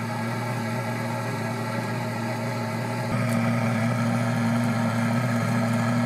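Gas torch flame blasting into a wood stove's firebox to light the firewood, making a steady droning hum that gets louder about halfway through.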